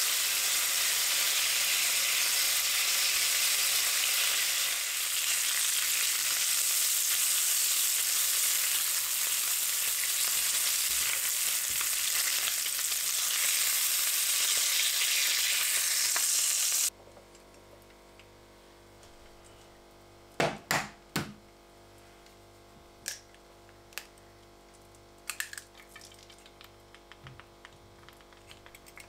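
Food frying in a pan: a loud, steady sizzle that cuts off abruptly about two-thirds of the way in. After it, a few sharp clicks and light clatters over a quiet background.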